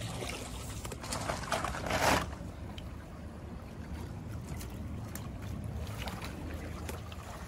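Shallow stream running steadily over stones, with a brief loud burst of splashing noise about two seconds in. Near the end, rubber boots splash as a person steps through the water.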